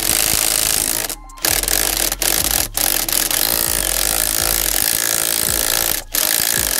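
Impact wrench hammering on the steering wheel's 16 mm centre bolt, run in long bursts with a short break about a second in and another near the end. The bolt is ridiculously tight, held with Loctite, and tough for the impact at first.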